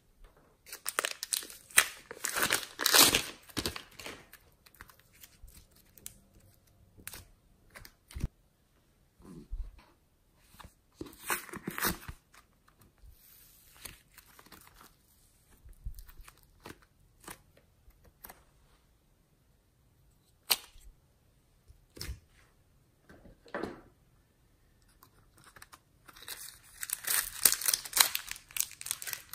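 Thin plastic wrapping crinkling and tearing in bursts as a clay ball is unwrapped by hand, with quieter gaps and scattered small clicks between; a small plastic packet crinkles near the end.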